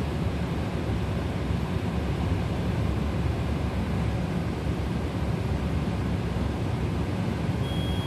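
Steady low hum and hiss of the iFS femtosecond laser system running during LASIK flap creation. Near the end a single short high beep sounds as the laser signals that the flap cut is complete.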